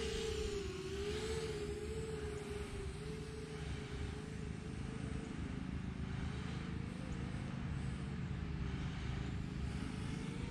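FPV quadcopter's brushless motors and 4-inch propellers whining as it flies, the pitch wavering up and down with the throttle.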